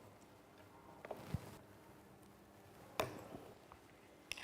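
A few short knocks and clicks on a hard surface as a closed jaffle iron is handled: two small ones about a second in, a stronger knock near three seconds and a click near the end.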